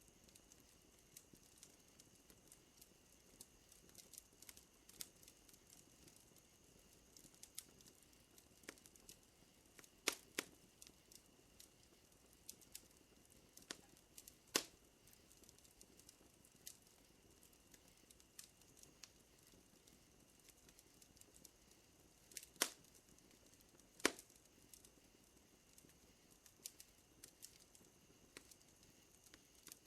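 Wood fire crackling quietly with scattered small pops and a few louder snaps. Under it runs a faint steady high chirring of night insects.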